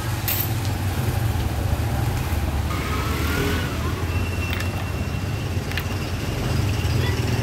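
Steady low rumble of street traffic, with a few light clicks and knocks.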